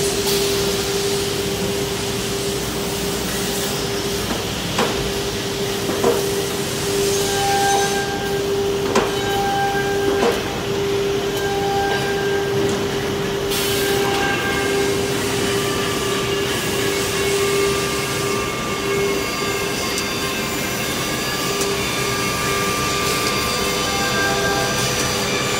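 CNC router with an automatic suction-cup loading table running: a steady machine hum with one constant tone and a hiss, and a few sharp clicks and knocks between about five and ten seconds in.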